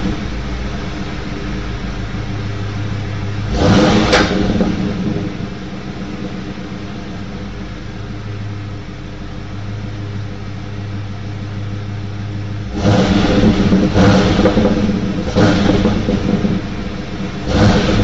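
1995 Ford Mustang GT's 5.0-litre (302) V8 through its stock exhaust. It idles steadily and is revved once briefly about four seconds in. Then, about two-thirds through, it runs louder at raised revs with three more quick revs.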